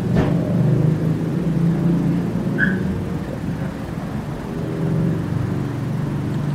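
An engine or motor running steadily, a low hum that swells and eases slightly, with a short click at the start and a brief high chirp midway.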